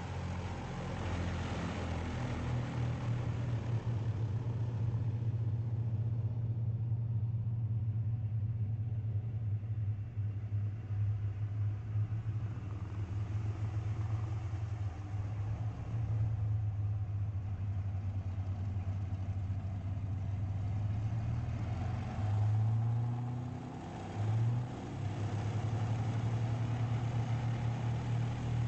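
Twin Allison V-1710 V12 engines of a Lockheed P-38 Lightning running at low power as the fighter taxis, a steady low drone. About three quarters of the way through, the pitch and level rise briefly twice.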